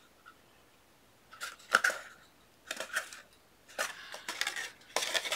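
Stiff cardstock box being handled and pressed into shape: a series of short, irregular papery crinkles and scrapes, starting after about a second of near quiet.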